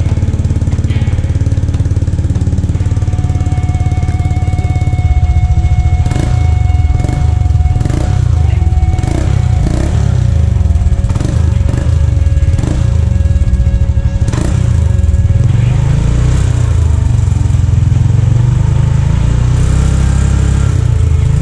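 Honda Click 150i scooter's single-cylinder engine running through an aftermarket JVT Pipe V3 exhaust set to its low setting, a deep steady exhaust note.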